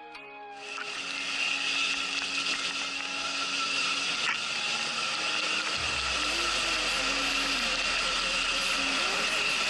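Electric enduro motorcycle on the move: the electric motor gives a steady high whine over the mechanical rattle of the chain and drivetrain and the tyre noise. A low rumble joins about six seconds in.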